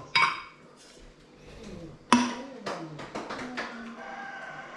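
Two sharp knocks of hard objects, one at the start and one about two seconds later, each ringing briefly, with faint voices in the background.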